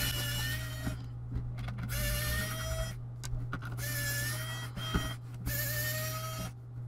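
Small pen-style electric screwdriver whirring in four short runs of about a second each, backing screws out of the laptop's plastic underside; its whine rises slightly in pitch during each run.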